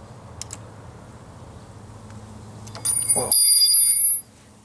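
A few light metallic clicks, then a loud bright metal ring of several steady high tones, held for a little over a second before it stops abruptly.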